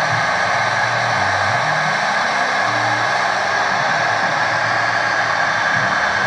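CNC machine running steadily: a high spindle whine over a rush of air noise, with a lower hum underneath that shifts in pitch in steps.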